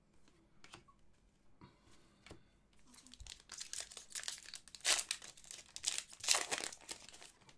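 Crinkling of a foil trading-card pack wrapper as hockey cards are handled: a few light clicks at first, then a dense stretch of crinkling through the second half.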